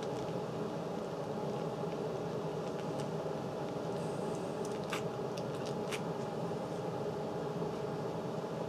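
Steady mechanical hum of room noise, with a few faint clicks about five to six seconds in.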